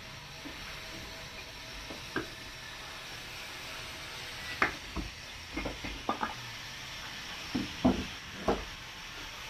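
Irregular knocks and clunks, about a dozen, over a steady hiss; the loudest come near the end.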